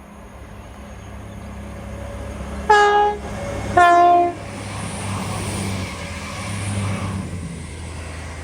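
Class 221 Voyager diesel multiple unit approaching with its engines and wheels rumbling louder, sounding its two-tone horn: a higher note, then a lower one, each about half a second long.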